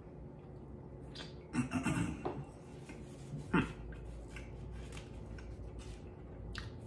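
Quiet handling sounds while eating a Reese's peanut butter cup: the paper candy-cup wrapper being handled and small clinks and taps at the tabletop. The loudest are a short cluster of sounds about a second and a half in and a single sharp one about three and a half seconds in.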